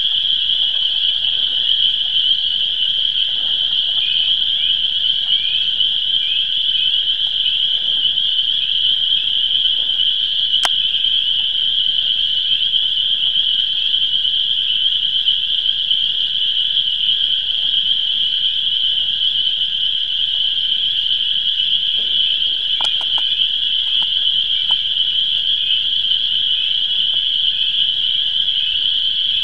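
Dense spring chorus of frogs calling from a swamp after emerging from winter hibernation, their high-pitched calls merging into one steady, unbroken din.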